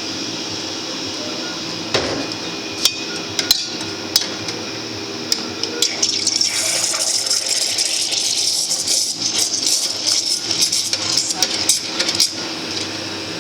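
A few knocks and clinks of a metal milk pitcher, then an espresso machine's steam wand hissing and sputtering in the pitcher of milk and chocolate for about six seconds, stopping near the end. A steady machine hum runs underneath.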